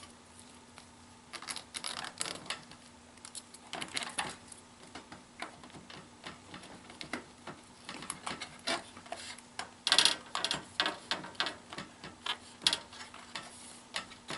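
Handling noise of an adhesive LED light strip being fitted: irregular clicks, taps and crackles as the adhesive backing is peeled off and the strip is pressed along the rail, with the loudest cluster about ten seconds in.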